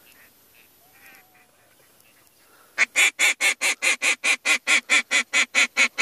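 A faint chirp or two, then about three seconds in a loud, rapid run of short, evenly spaced bird calls, about five a second, that keeps going.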